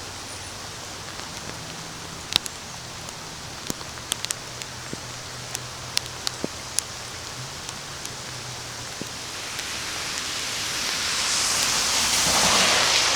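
Heavy rain falling steadily, with individual drops tapping sharply close to the microphone. Near the end a louder rushing noise swells up and begins to fade.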